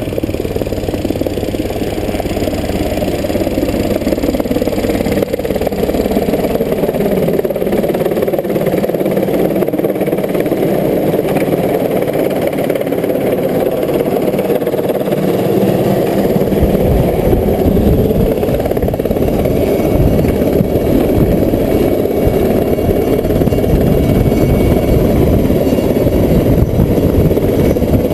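Helicopter flying in and coming down to hover low overhead, growing louder, with the rotor's beat becoming strong and pulsing from about halfway. It is lowering its underslung water bucket onto a portable tank to fill it.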